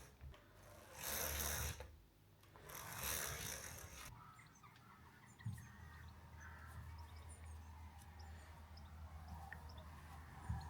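Two loud breath-like rushes of noise in the first four seconds, then faint birds chirping over a low steady hum.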